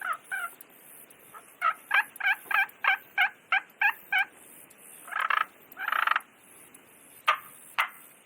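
Ultimate Spur Master turkey call worked with its striker, imitating a hen turkey's soft tree yelp: a run of about ten short yelps at roughly three a second. Two longer, rougher notes follow, then two sharp clucks near the end.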